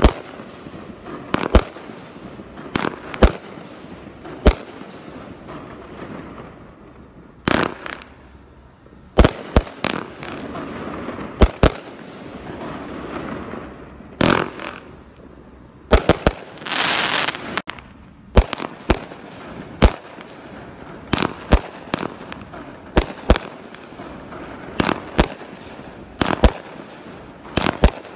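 Multi-shot consumer fireworks cake firing: a long series of sharp bangs as shells launch and burst, irregularly spaced about a second or two apart. About two-thirds of the way through, a loud hiss lasts around a second.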